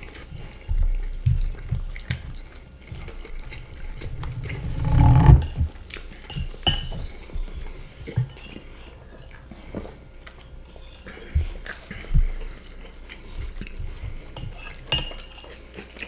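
A metal spoon and a wooden spoon scraping and clinking on ceramic plates, in scattered short strokes, with one louder low sound lasting about a second around five seconds in.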